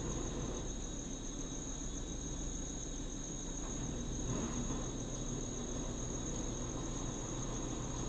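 Washing machine running with a steady low hum and hiss, under a continuous high-pitched cricket trill.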